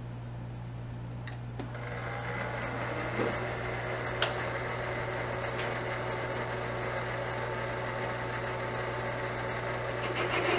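Milling machine spindle with a three-inch boring head spinning up about two seconds in, with a rising whine, then running steadily with a motor hum and several steady tones. A sharp click comes about four seconds in.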